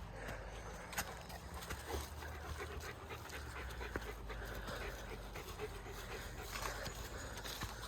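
Dog panting steadily, with scattered footsteps on the trail.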